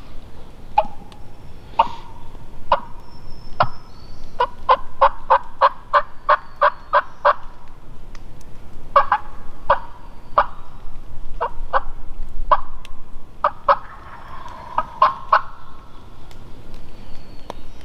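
Turkey yelping: short, sharp notes, scattered at first, then a fast even run of about a dozen at roughly four a second, then a few more spaced out.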